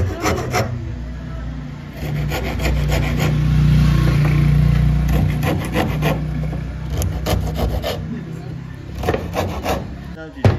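A fine-toothed hand saw cutting a small piece of wood in quick back-and-forth strokes, in several runs with short pauses. A low steady hum runs underneath and is loudest midway.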